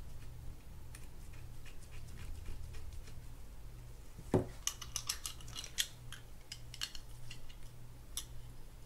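Small metal parts of a spinning reel's bail assembly being handled: light scattered clicks, then one dull knock about four seconds in, followed by a quick run of sharp metallic clicks and one last click near the end.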